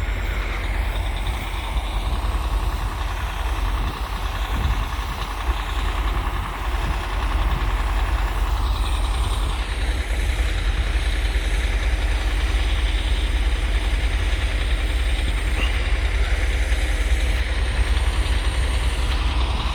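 Truck engine idling: a steady low rumble with an even hiss above it.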